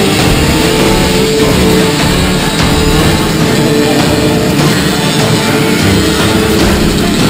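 Loud rock music, in a heavy-metal style, playing steadily.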